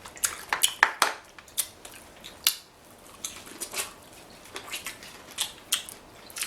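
Close-miked eating of seafood-boil food: an irregular run of wet smacks and clicks from chewing and lip smacking.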